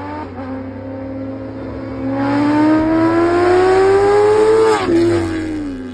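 Kawasaki Ninja ZX-10R's inline-four engine accelerating hard, its revs climbing steadily and getting louder about two seconds in, then dropping sharply near the end.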